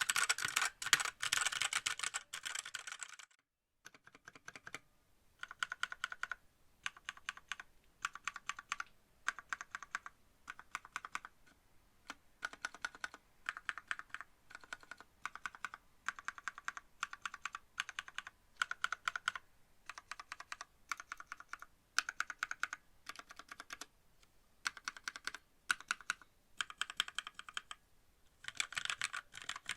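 Typing on a WENRUI WR63 mechanical keyboard with lubed red linear switches: quick runs of keystrokes separated by short pauses. The typing is dense at the start and near the end, and stops briefly about three and a half seconds in.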